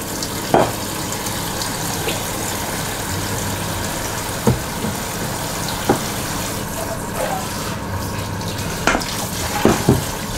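Kitchen tap running steadily into a stainless-steel sink while dishes are rinsed, with a few sharp clinks of metal bowls and frying pans being handled and set down, the last ones near the end.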